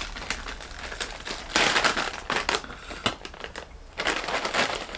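Plastic snack packet (a packet of namkeen) crinkling as it is handled and opened, in irregular bursts, loudest about two seconds in.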